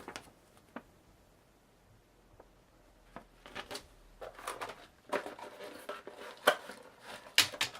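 Cardboard box and paper packaging being handled: a few light clicks at first, then busier rustling and light knocks from about three seconds in, with one sharper knock near the end.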